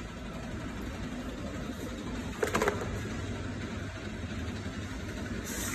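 Steady low hum of factory machinery running, with a brief burst of knocks about two and a half seconds in.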